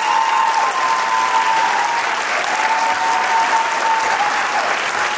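Audience applauding steadily for a dance group at the end of its number. A thin, steady high tone sounds over the clapping twice, for a second or two each time.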